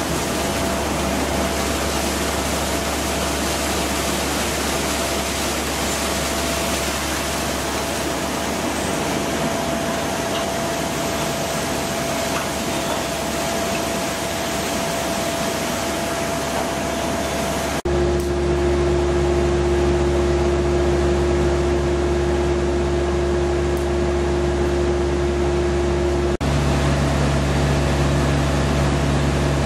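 Steady paper-mill machinery noise: a dense rush of flowing pulp stock over electric motors, with one thin steady whine. A bit over halfway through it changes abruptly to a deeper machine hum with a held tone, and shifts again near the end.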